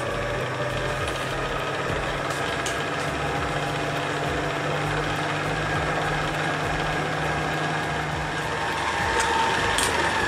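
Electric stand mixer motor running steadily as its dough hook kneads flour into pretzel dough, with a constant hum that gets a little louder near the end.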